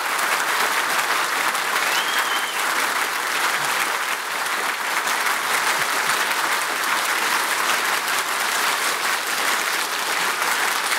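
Large audience clapping hard and without a break, a steady, sustained applause, kept up to drive a clap-controlled game in which louder clapping makes the bird fly higher.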